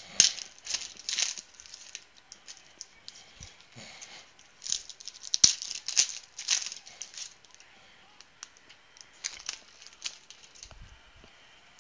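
Trading cards being handled over a wooden table: a foil pack wrapper crinkling, cards sliding and flicking against each other, and cards tapped down into stacks. The rustles and clicks come in quick clusters, busiest in the first second and a half and again about halfway through, and thin out near the end.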